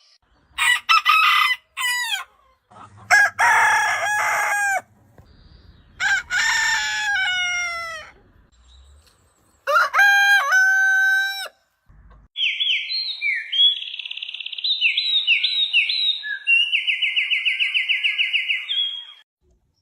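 Chickens calling in a series of separate takes: a rooster crowing and hens clucking, then a long run of high, quick chirps over the last several seconds.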